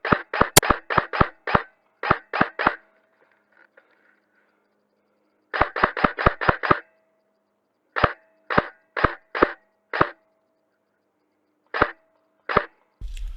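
Airsoft gun firing rapid single shots in four quick strings of about four shots a second, with pauses between, then two lone shots near the end.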